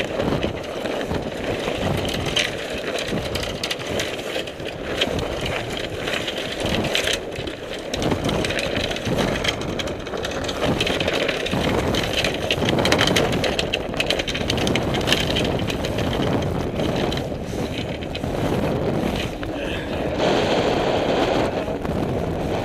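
Gusting wind buffeting the microphone, with the mainsail's cloth flapping and rustling and irregular knocks and clatter as the sail is hauled down onto the boom.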